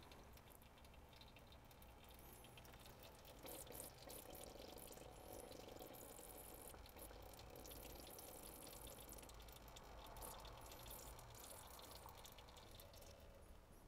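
Gear oil dripping into a drain pan: faint, scattered small drips.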